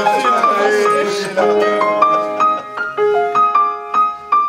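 Hanlet grand piano played live: a melody of ringing notes over lower held notes, with voices chattering in the first second or so.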